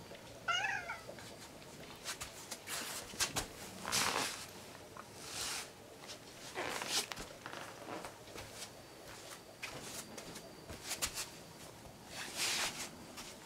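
A domestic cat gives one short, wavering meow about half a second in, then a string of brief brushing, rustling noises as it rubs its fur against the camera.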